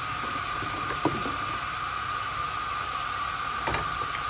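Minced meat sizzling in oil in a frying pan, a steady hiss, with two light knocks of a utensil against the pan, about a second in and near the end.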